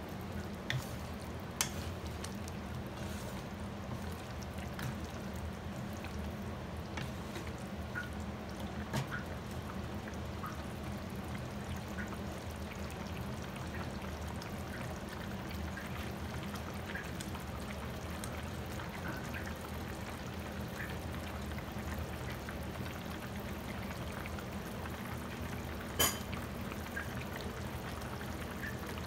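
Pork adobo simmering in its sauce in a pan, bubbling steadily with small scattered pops over a low steady hum. Two sharp knocks, one shortly after the start and one near the end.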